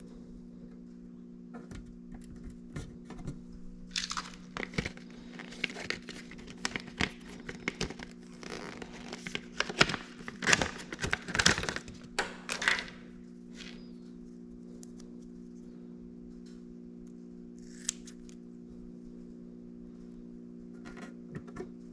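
Double-sided tape being cut and its backing peeled: a run of crinkling, tearing rustles and small clicks, busiest in the middle, with one more rustle near the end, over a steady low hum.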